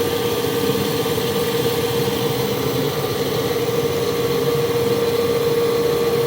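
Bode 7.5-ton welding positioner's electric table-rotation drive running, a steady whine at one unchanging pitch over a mechanical hum.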